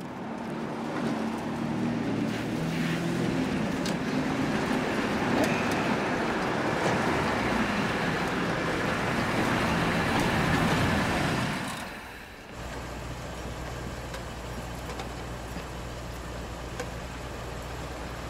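Old car engines running as vehicles drive up a dirt street, growing louder over about eleven seconds. About twelve seconds in the sound cuts suddenly to a quieter, steady low engine hum.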